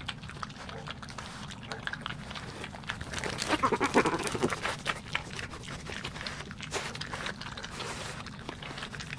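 European badgers crunching peanuts amid many quick clicks of chewing, with a louder growl about three and a half to four and a half seconds in as they jostle over the food.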